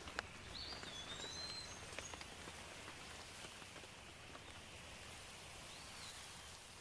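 Steady rain falling on foliage, with a few single drops landing close by. A bird whistles twice: a sliding, held note about half a second in, and a short arched note near the end.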